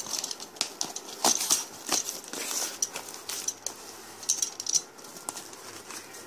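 Cardboard shipping box being opened by hand: irregular crackles, clicks and rustles of the cardboard flaps and packing tape, thinning out near the end.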